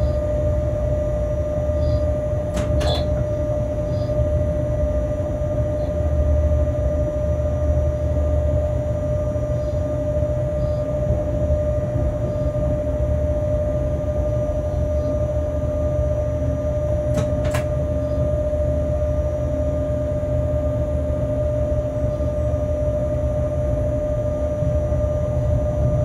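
Freight locomotive cab interior noise: a steady low rumble under a constant mid-pitched hum, with two sharp clicks, one a few seconds in and one about two thirds of the way through.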